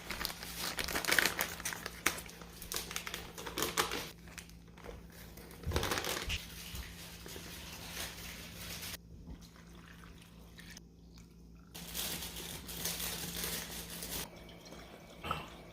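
Kitchen handling noises: irregular rustling and crinkling with light clicks and clatter, busiest in the first few seconds and quieter later, over a faint steady hum.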